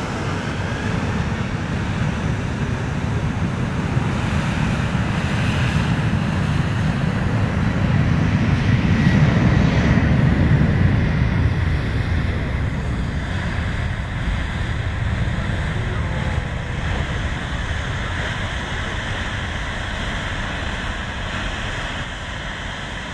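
Boeing 737 airliner's twin jet engines running at taxi power as it passes close by. A steady rumble and roar swells to its loudest about ten seconds in, then slowly fades as the aircraft moves away.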